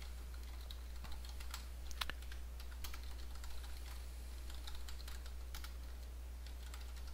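Typing on a computer keyboard: irregular key clicks in quick runs, over a steady low hum.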